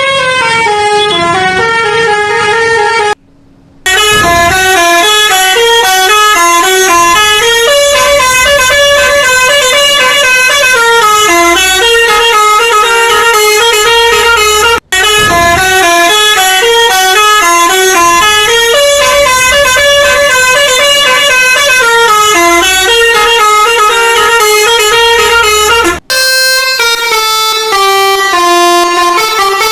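Bus telolet horn (a Basuri multi-tone musical air horn) playing a tune of stepping notes over and over. The sound breaks off briefly about three seconds in, about halfway, and near the end.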